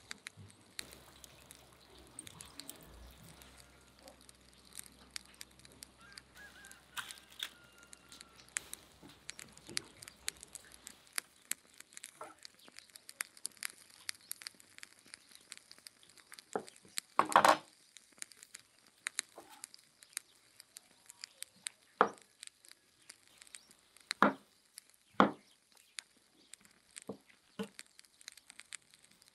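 Large kitchen knife cutting and pulling apart oyster mushrooms on a wooden cutting board: irregular knocks of the blade hitting the board with soft tearing in between, one knock louder than the rest about two-thirds of the way through.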